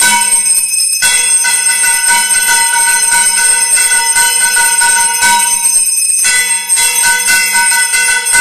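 Temple bells ringing fast and continuously, a dense clangour of rapid strikes over sustained ringing tones, for the aarti. There are two brief dips, about one second in and about six seconds in.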